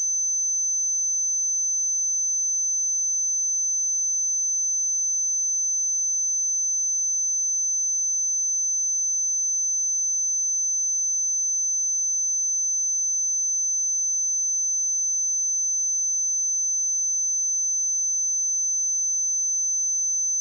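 Steady 6133 Hz sine-wave test tone: a single high-pitched pure tone held at constant level.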